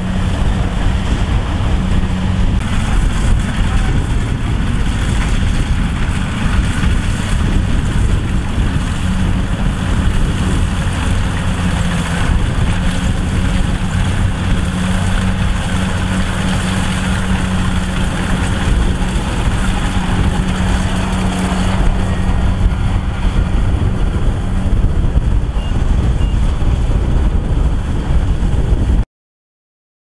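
Kubota DC108X combine harvester's diesel engine running steadily with a constant low hum, over a dense mechanical noise; the sound cuts off abruptly near the end.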